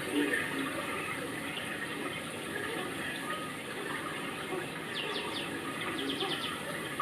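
Steady rush of running water, with a bird giving two short runs of quick falling chirps about five and six seconds in.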